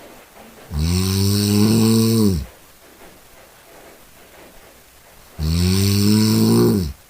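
A cat snoring loudly: two long snores, one about a second in and one near the end, each lasting about a second and a half, with a pitch that rises at the start and drops off as each snore ends.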